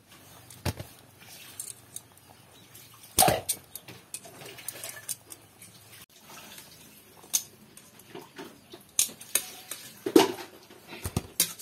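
Metal tongs clinking and knocking against a metal cooking pot as boiled corn cobs are lifted out. There are a handful of sharp clinks spread through, the loudest about three seconds in and again near ten seconds.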